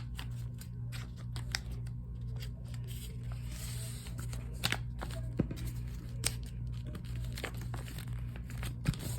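Sheet of paper being folded and creased by hand: soft rustling with a few sharp crinkles and taps, over a steady low hum.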